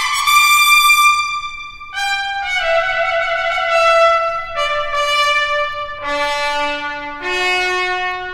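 Trumpet playing a slow melody of long held notes, each changing pitch every second or so.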